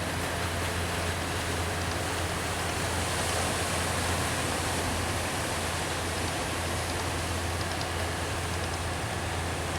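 Steady rushing noise of surf at the beach, with a constant low rumble underneath and no separate events.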